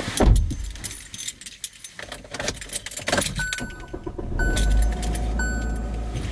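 Keys jangling and clinking, then a car's chime beeping about once a second over a low engine rumble that sets in about four seconds in.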